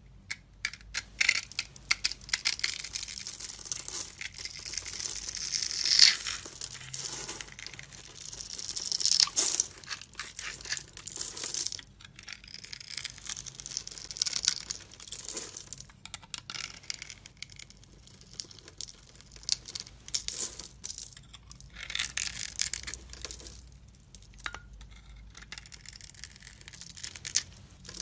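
Utility knife blade cutting into a hard, dry, cracked bar of brown soap in a criss-cross pattern, a dense run of sharp crackling cuts as shavings and small cubes break off. The cutting comes in bursts with short pauses between them.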